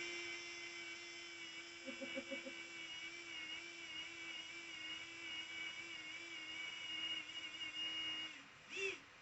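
Cooling fan of a Creality Ender 3 V2 3D printer whining steadily with a slightly wavering pitch: an abnormally noisy fan on a printer only a few days old. The whine cuts off near the end and is followed by a short squeaky chirp.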